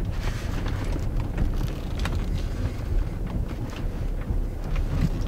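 2014 Mercedes-Benz GLK 250 BlueTEC crossover driving over a rough dirt and gravel track: a steady low rumble of tyres and running gear, with scattered small clicks from stones.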